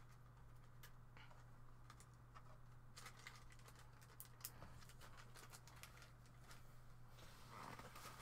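Near silence: a steady low hum with a few faint, scattered clicks.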